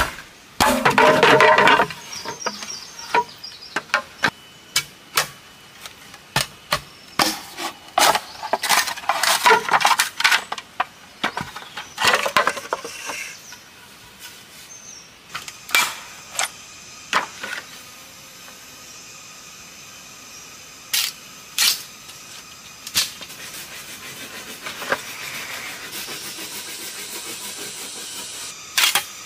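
Irregular sharp knocks of tools working wood, with stretches of scraping in the first half. The knocks thin out later over a steady hiss.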